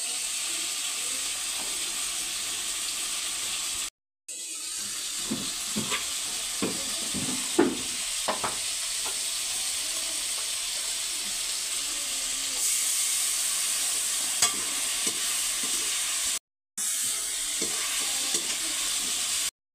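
Chopped vegetables sizzling as they fry in oil in an iron kadhai, a steady hiss. A run of short knocks and clinks about five to nine seconds in, and the sound drops out briefly twice.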